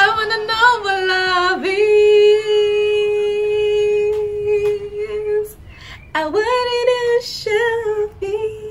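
A woman singing along loudly to a song, holding one long steady note, then a few shorter sung notes after a brief pause.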